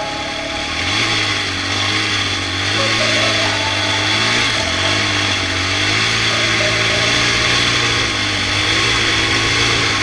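Polaris Outlaw 525 quad's KTM-built single-cylinder four-stroke engine running under throttle while riding on snow, the revs rising and falling.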